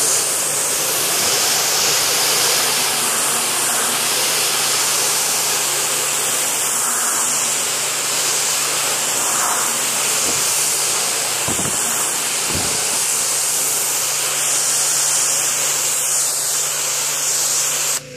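Gasoline-engine pressure washer spraying a high-pressure fan of water onto vinyl siding: a loud, steady hiss of spray over the engine's low hum. The spray stops abruptly near the end.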